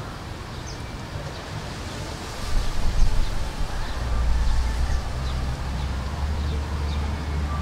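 Outdoor background noise with faint, short, high chirps. About two and a half seconds in, a low rumble comes in and stays.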